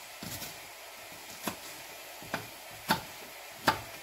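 A small paring knife dicing an onion on a wooden chopping board: four sharp knocks of the blade on the board in the second half, each a little louder than the last.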